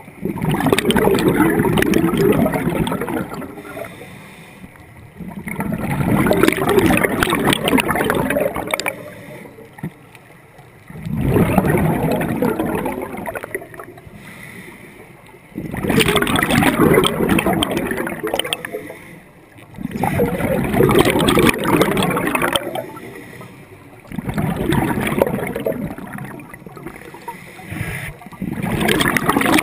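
Scuba diver's breathing heard underwater: exhaled air bubbling out of the regulator in long gurgling bursts about every four to five seconds, with quieter pauses between breaths.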